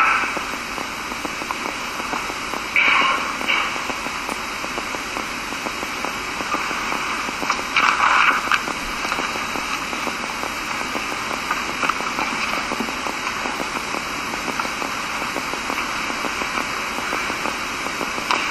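Steady hiss of background noise in a lecture recording, with a few short faint sounds near the start and about three and eight seconds in.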